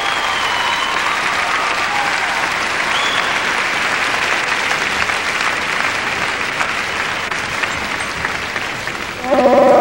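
Audience applauding steadily. Near the end a loud Chewbacca roar, the Wookiee's pitched call, breaks in over the applause.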